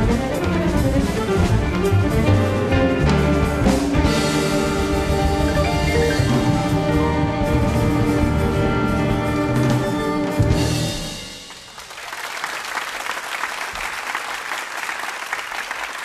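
Live jazz-fusion band playing the closing bars of a piece, ending on a final hit about eleven seconds in, followed by audience applause. Heard as an FM radio broadcast recorded on cassette tape.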